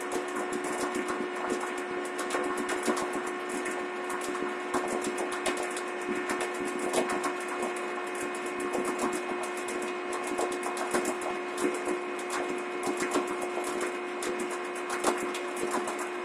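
A small motor-driven machine running, with a steady hum under dense, irregular crackling clicks.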